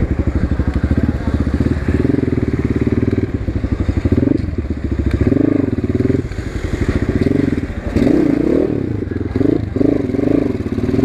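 Asian Beast 250 dirt bike's engine and exhaust running at low road speed, the throttle opened and eased off several times so the pulsing beat rises and falls.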